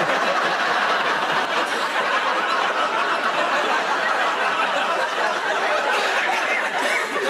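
A large studio audience laughing loudly and steadily for several seconds.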